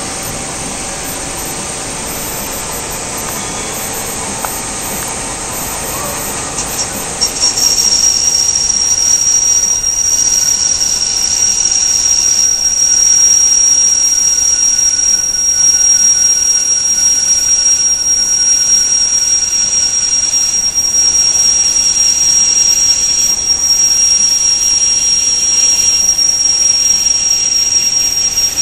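Bardons & Oliver automatic tube cut-off lathe running with a steady mechanical noise. About seven seconds in, it gets louder and a single steady high-pitched squeal starts and holds as the tooling cuts the spinning metal tube.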